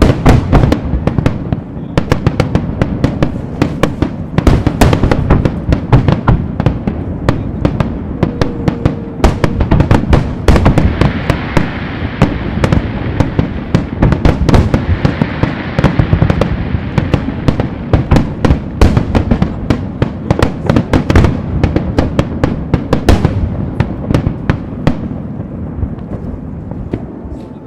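Fireworks display: aerial shells bursting in quick succession, dozens of booms. There is a stretch of dense crackling from about ten to seventeen seconds in, and the bangs thin out and fade near the end.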